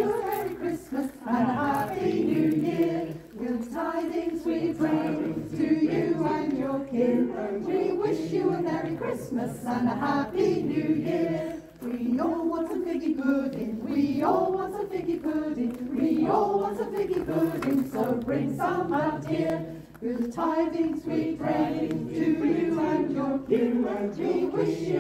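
A choir singing a festive song, phrase after phrase, with brief breaks between phrases about every eight seconds.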